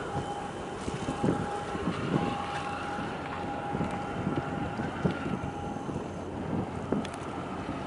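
Wind buffeting the microphone in uneven gusts over waterfront ambience, with a thin steady whine running underneath that breaks off now and then and fades out near the end.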